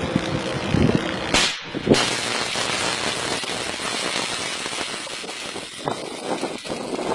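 High-voltage substation disconnect switch closing under voltage: a steady crackling hiss of electric arcing between the swinging arm tips, with two sharp snaps about one and a half and two seconds in.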